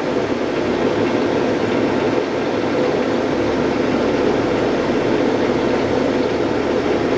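Blanchard No. 20-36 vertical rotary surface grinder running under power, its wheel spindle turning and magnetic chuck rotating with the down feed engaged: a loud, steady, even mechanical running noise.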